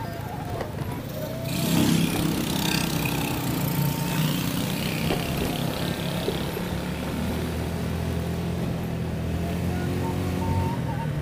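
Motorcycle engine running on the road with wind and road noise, getting louder about a second and a half in.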